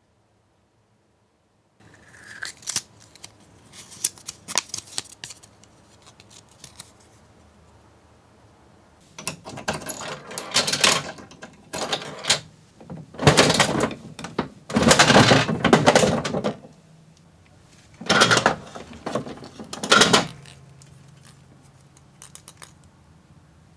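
A gacha capsule machine being worked: small clicks first, then several loud clattering stretches as its crank handle is turned through its ratchet and a foil-wrapped chocolate egg drops into the outlet.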